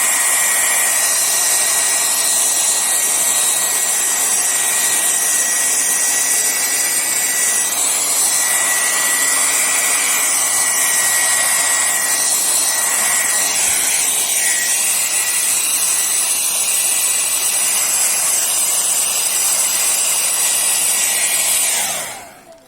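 Hair dryer blowing steadily, a constant whine over the rush of air, drying a very wet watercolour wash to halt the paint's spread. It is switched off near the end, its whine falling as it winds down.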